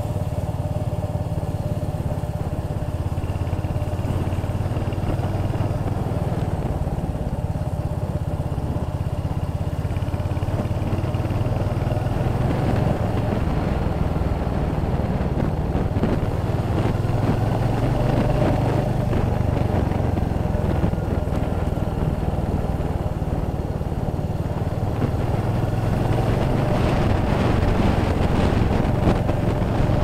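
Royal Enfield Hunter 350's single-cylinder engine running steadily at cruising speed, heard from the rider's seat, with a hiss of wind and road noise that grows a little louder near the end.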